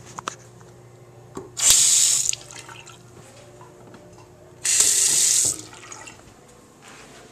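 Bathroom sink faucet turned on and off twice, water gushing into the basin for about a second each time: once nearly two seconds in, and again about five seconds in.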